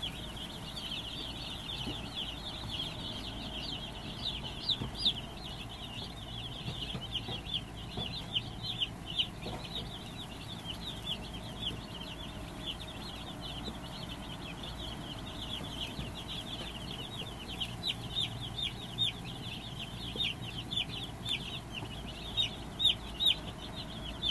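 A brooder full of newly hatched Cornish cross broiler chicks peeping continuously, many short falling peeps overlapping in a high chorus that grows louder and busier near the end.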